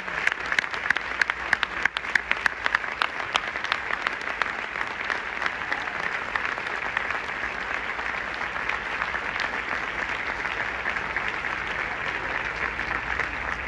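Large audience applauding: a few sharp, close hand claps stand out over the first few seconds, then the clapping blends into a steady, dense wash of applause.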